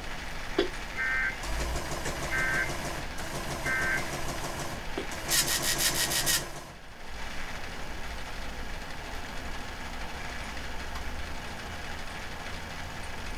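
Emergency Alert System end-of-message signal: three short digital data bursts about a second apart, the standard ending of a relayed alert, mixed with stretches of electronic buzzing. A louder pulsing buzz follows about five seconds in, then a steady low hiss.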